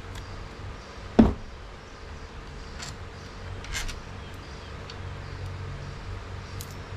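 Workshop handling sounds: one sharp knock about a second in, then a few faint clicks of metal tools and screws, over a steady low hum.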